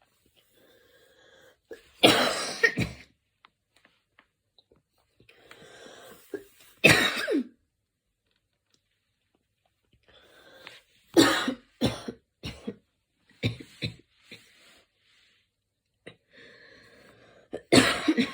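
A woman's coughing fit: four bouts of several coughs each, about two seconds in, around seven seconds, a longer run from about eleven to fifteen seconds, and another starting near the end. A quieter breath drawn in comes before each bout.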